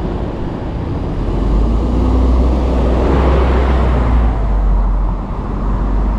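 Road traffic noise: a steady low rumble of motor vehicles that swells about a second and a half in and eases after about five seconds.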